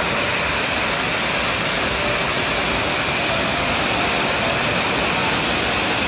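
Waterfall pouring onto rocks and boulders: a loud, steady rush of falling water.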